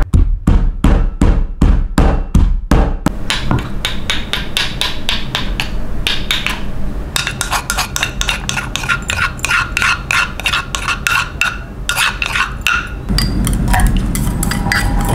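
Wooden pestle pounding garlic, shallots and chilies in a wooden mortar, about three even strikes a second, for the first three seconds. Then quicker, lighter tapping and scraping, and near the end water bubbling at a boil in a steel pot.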